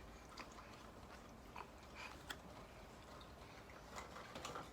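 Faint chewing with a few small, short mouth clicks, the sharpest a little over two seconds in: a homemade cheeseburger being eaten.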